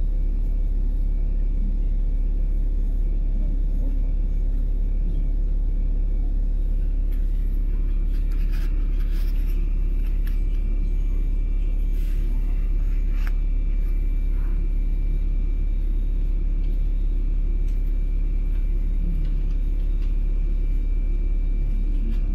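Steady low rumble of a LiAZ-5292.65 city bus's engine and running gear, heard from inside the passenger cabin, with a few light rattles and clicks about halfway through.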